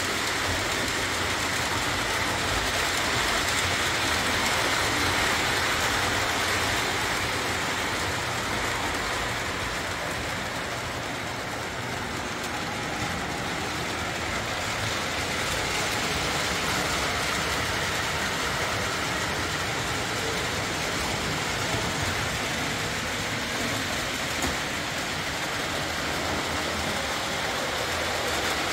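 Lionel O-27 toy train with Alco diesel locomotives running on its track: a steady whir and rumble of motor and wheels that eases a little midway and builds again.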